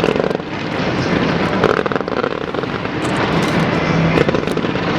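Fireworks display: a continuous dense mass of pops and crackles from exploding aerial shells.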